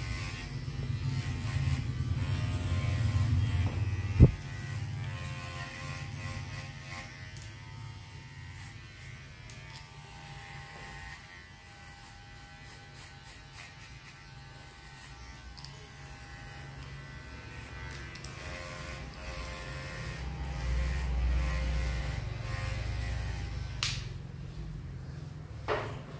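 Cordless hair clipper buzzing as it cuts short hair on the side and back of the head, louder in the first few seconds and again near the end. A sharp click about four seconds in.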